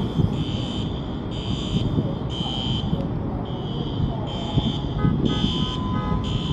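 Hyundai Ioniq 6 sounding a high, repeating warning beep, about one half-second beep a second, as it moves itself under remote control parking. A steady low rumble of background noise runs underneath.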